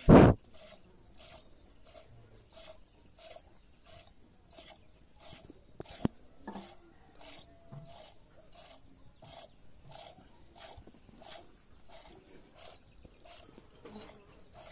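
Hand-milking a buffalo into a small steel pot: jets of milk squirting into the pot in a steady rhythm, a little over two squirts a second. A loud brief thump comes right at the start, and a sharp click about six seconds in.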